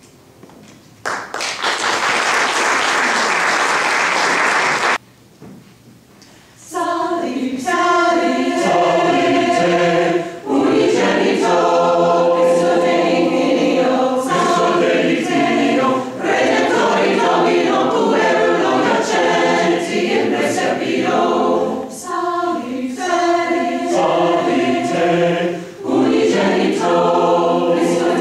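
Audience applause for about four seconds, then, after a short pause, a mixed choir of women and men begins singing in phrases with brief breaths between them.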